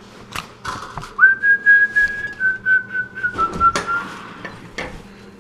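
A person whistling a few long held notes, each a little lower than the one before, with scattered clicks and knocks as the front door is opened.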